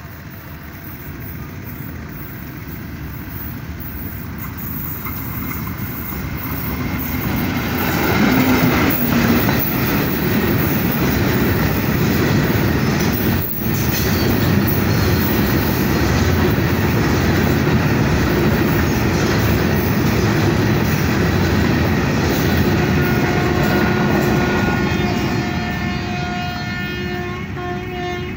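A long coal train of hopper wagons pulled by a diesel locomotive, approaching, running close past with the heavy steady noise of its wheels on the rails, then fading as it moves away. Thin wheel squeal can be heard near the end.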